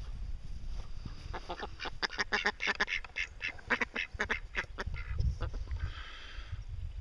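Mallard ducks quacking: a quick run of short quacks, about four or five a second, then one longer drawn-out call near the end.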